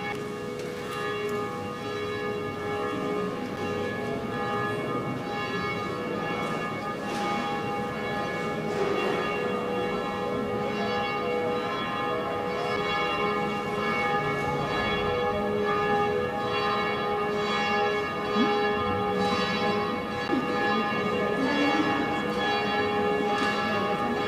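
Church bells ringing, struck over and over, their tones overlapping and ringing on without a break.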